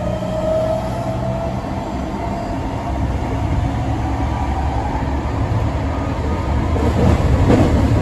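Running noise inside a Saitama Railway 2000 series train: a steady rumble of wheels and bogies on the track. The whine of the Mitsubishi IGBT VVVF traction motors rises slightly in pitch and dies away about a second and a half in. Near the end the rumble grows louder, with a few knocks.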